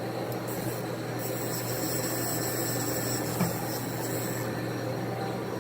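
Steady mechanical hum of a Haas CNC machining center standing by, with a thin high whine lasting about three seconds in the middle and a faint click about three and a half seconds in.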